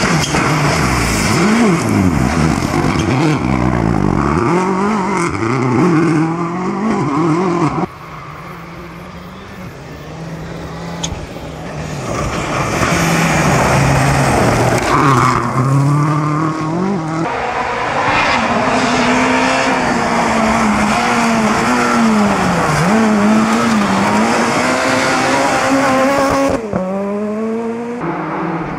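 Turbocharged four-cylinder rally cars, among them Peugeot 307 WRCs, passing flat out on a gravel stage in three separate passes, engines revving high and dropping through quick gear changes over the rush of tyres on loose gravel. Near the end a fresh engine note climbs steeply as the next car approaches.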